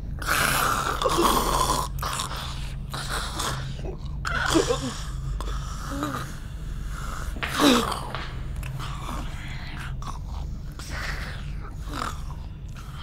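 Zombie attack sound effects: wet chewing and biting with a woman's gasps, groans and short strained cries, the loudest cries about four and a half and seven and a half seconds in, over a steady low drone.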